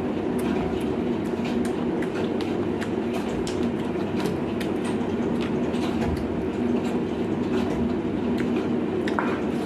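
Close-up chewing: small irregular mouth clicks and smacks of someone eating, over a steady low mechanical hum.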